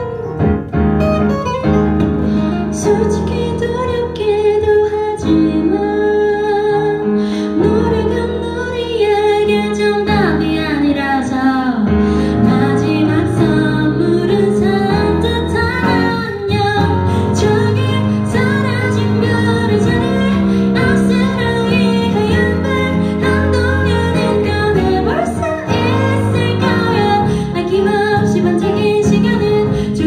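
A woman singing a slow ballad with a clear, sustained voice over her own piano accompaniment played on a stage keyboard.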